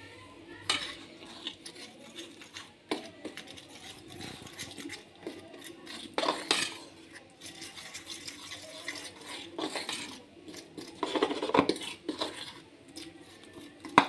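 A utensil stirring and scraping against a ceramic bowl, mixing a thick flour, egg and water batter, with irregular clinks and a few louder strokes.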